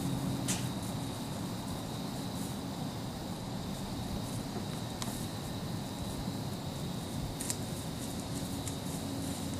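Insects, crickets, chirring steadily in a high, even tone over a field, with three short sharp ticks: about half a second in, at the midpoint, and near the end.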